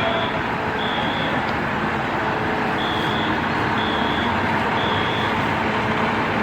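A truck's reversing alarm beeping about once a second, with one skipped beep near the middle, over steady heavy engine and street noise.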